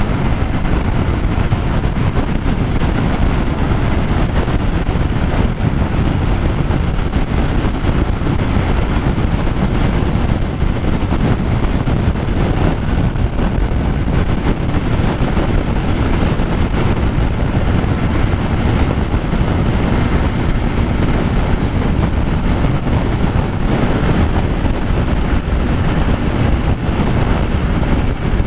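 Steady rush of strong wind over the microphone of a motorcycle riding at highway speed, with engine and road noise underneath.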